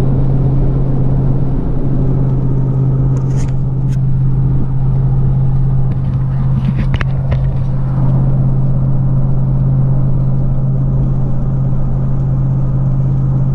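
Steady drone of a vehicle cruising at highway speed, heard from inside the cabin: engine and road noise with a strong, constant low hum.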